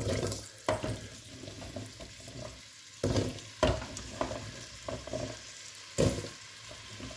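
Diced raw potatoes dropped by hand into hot melted butter in a stainless steel pot, sizzling in the fat. Several knocks as handfuls of pieces land, the loudest about three and six seconds in.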